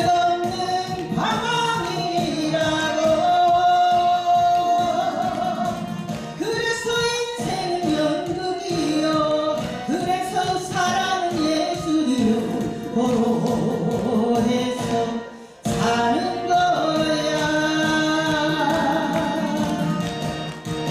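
Korean trot music with a melodic lead line over a backing track. The music briefly drops out about fifteen seconds in, then resumes.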